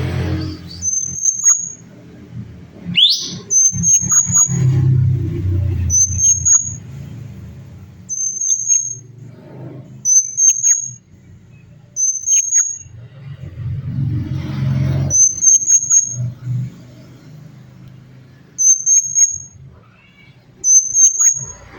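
Cucak cungkok calling: a series of short, high, slightly rising whistled notes about one a second. A low rumble swells and fades underneath at times.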